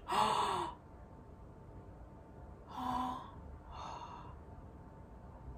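A woman's shocked, voiced gasps: a loud one right at the start, then two shorter ones about three and four seconds in.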